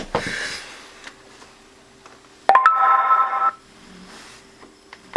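Electronic beep tones, most likely from the Inmotion V12 electric unicycle. About two and a half seconds in, a click is followed by a steady chime of several pitches held for about a second. Right at the end, another click comes with a short beep. A thump and a brief rustle at the start come from the wheel being handled and set upright.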